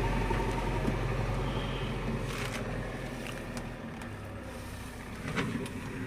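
JCB 3DX backhoe loader's diesel engine running with a steady low hum that grows quieter toward the middle, with a few short clicks.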